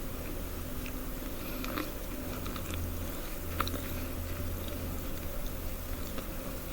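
A person biting and chewing food close to the microphone: scattered small crunchy clicks, one sharper about halfway through, over a steady low hum.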